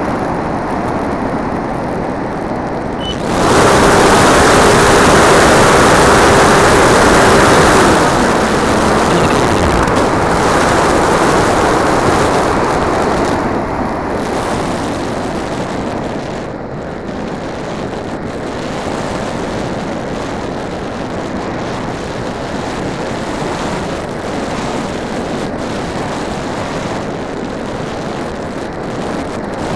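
Onboard sound of a Multiplex Blizzard electric ducted-fan RC jet in flight: a steady rush of air over the airframe. About three seconds in it jumps suddenly louder with a steady whine as the fan is throttled up. It eases back at about eight seconds and falls off again around thirteen seconds to a plainer wind rush.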